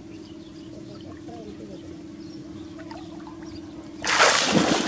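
Baby monkey splashing in shallow pond water: a sudden loud splash about four seconds in as it lunges through the water. Before that only a steady low hum is heard.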